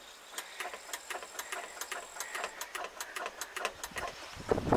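Fortschritt E303 self-propelled mower's starting circuit clicking rapidly and irregularly, several times a second, as the ignition key is turned, without the starter engaging. The clicking is the sign of the fault that makes key starting unreliable, and its cause is unknown to the owner. Near the end a much louder, rushing mechanical noise starts.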